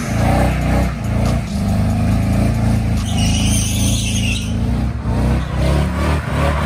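Pickup truck doing a burnout: its engine is held at high revs with the rear tyres spinning on the pavement, and the revs rise and dip a little. A brief high-pitched sound joins in about three seconds in.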